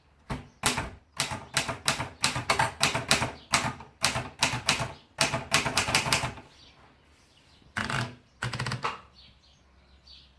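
Empire Aristocrat typewriter being typed on: a quick run of sharp key strikes, about three a second, for some six seconds. Then come two short clattering bursts a little later.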